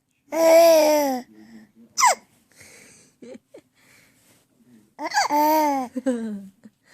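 Someone laughing in two long, drawn-out cries that fall in pitch, one about a second in and one near the end. Between them, about two seconds in, there is a short, sharp high squeak.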